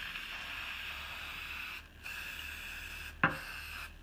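Aerosol spray-paint can hissing as paint is sprayed onto the water surface for hydro dipping, in two long bursts with a brief break about two seconds in. A sharp click sounds a little after three seconds.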